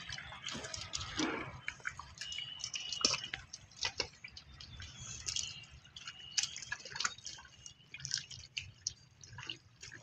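Water splashing and dripping in small, irregular drops and splashes.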